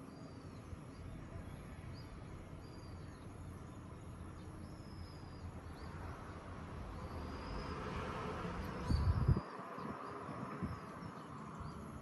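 Outdoor evening ambience: small birds chirping in short, repeated calls over a steady high insect drone. A low rumble builds and peaks about nine seconds in, then cuts off suddenly.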